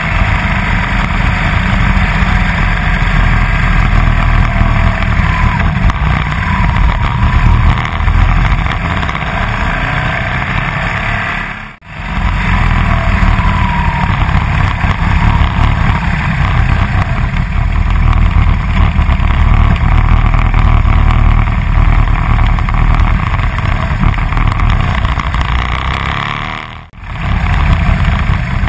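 Wind rushing over a motorcycle-mounted camera's microphone, with the motorcycle's engine running underneath as it rides along. The sound drops out briefly twice, about 12 and 27 seconds in, at cuts between clips.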